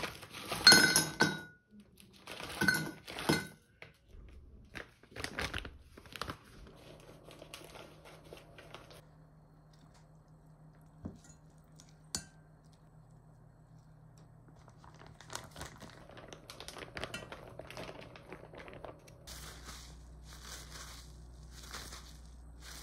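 Plastic food packet crinkling and tearing in the first few seconds, the loudest part. Then quiet kitchen handling with a couple of light clicks and soft rustling, and near the end paper towel crinkling as it is pressed around shrimp.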